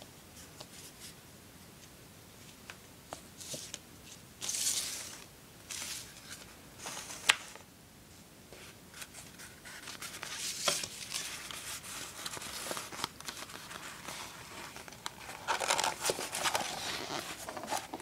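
Metallic scrapbook paper rustling and crinkling in intermittent bursts as it is handled and wrapped around a cardboard toilet paper roll, with a few sharp clicks.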